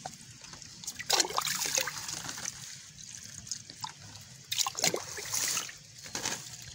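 Liquid fertilizer solution poured from a cup onto the soil at the base of chili plants, trickling in two short pours: about a second in and again after about four and a half seconds.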